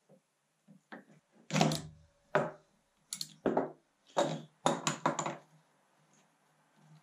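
A run of about eight sharp knocks and clunks as metal hand tools and parts of a grinding-wheel assembly are handled and set down on a wooden workbench: locking pliers clamped on the wheel shaft, a nut and washer taken off, a ratchet wrench laid on the bench.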